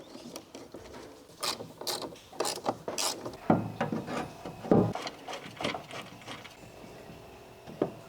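Hand ratchet wrench clicking in short irregular runs as bolts are done up, with a few louder knocks of metal on metal.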